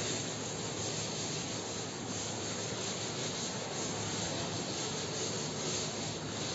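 A cloth wiping chalk off a blackboard: steady, even rubbing.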